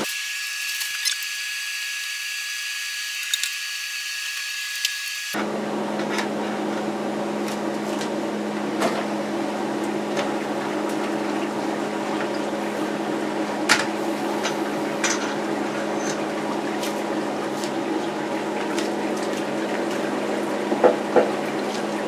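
Hot wort draining and dripping from the lifted Grainfather grain basket through the grain bed into the kettle below, a steady trickling and splashing over a steady hum, with occasional light clinks. For about the first five seconds only a thin, high-pitched hiss is heard before the full sound comes in.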